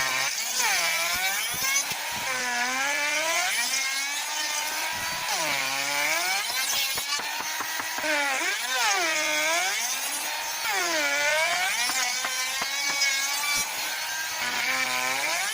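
Electric power tool cutting a rebate along the edge of a wooden door leaf. The motor's whine sags as the cutter bites into the wood and climbs back as it frees, about six times.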